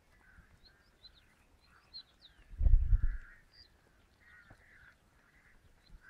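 Small birds chirping faintly and repeatedly in the background, with a brief low rumble about two and a half seconds in and a few faint clicks.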